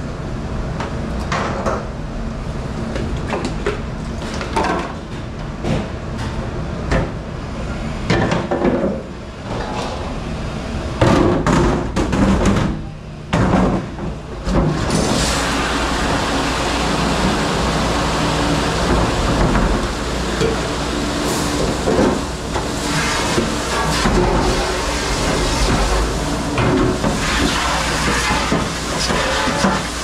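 Dish-room clatter: plates and utensils knocking against each other over a steady low hum, with a hiss of running or spraying water filling in from about halfway through.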